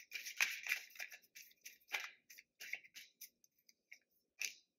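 Tarot cards being handled and squared up on a table: an irregular run of crisp card rustles, slides and taps, busiest in the first second and with a last one near the end.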